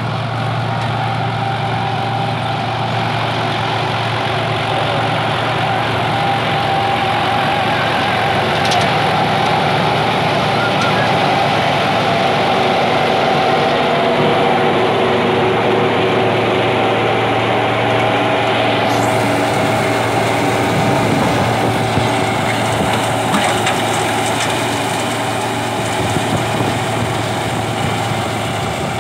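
Tractor engine running steadily under load, driving a straw reaper (tudi machine) that cuts and chops the stubble into straw and blows it into a trolley; a steady mechanical drone. A brighter hiss joins about two-thirds of the way through.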